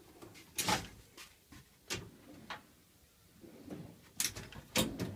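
Tool box drawers being handled: about six short knocks and clicks spread across a few seconds as drawers slide open and shut.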